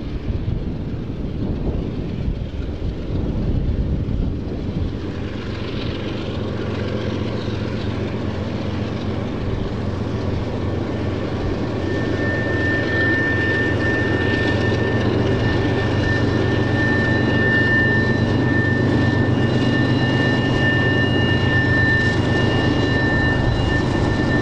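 Union Pacific diesel locomotives running as they approach, a low engine hum building and growing louder. About halfway through, a steady high-pitched whine joins it.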